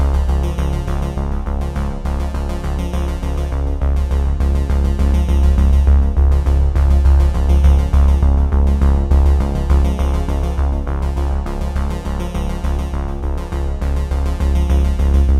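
Background electronic music with a steady beat and a heavy bass line.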